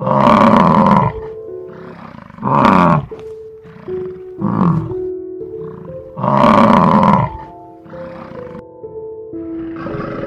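A large animal calling loudly four times, each call falling in pitch, over background music with sustained notes.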